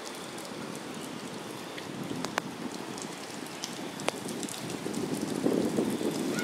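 Steady rain falling on water and grass, with two sharp close drop taps about two and four seconds in. The rain swells louder near the end.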